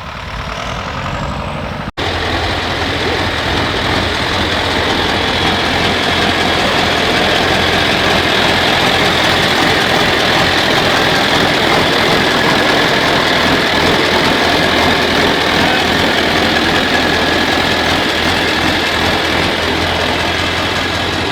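Engine running steadily with a constant low hum and a loud, even mechanical rush of noise. It starts abruptly about two seconds in.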